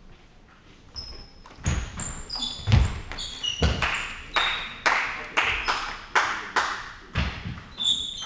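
A table tennis ball bouncing over and over on hard surfaces, about two sharp clicks a second with a short ringing ping. Some bounces land with a low thud.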